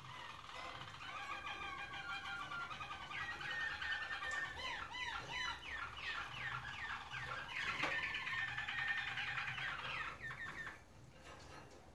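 Roller canary song: a long, unbroken run of rolling trills, held notes and fast repeated chirps, breaking off about eleven seconds in.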